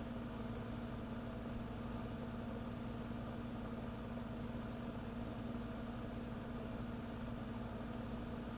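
Steady mechanical hum with a low, even drone that does not change.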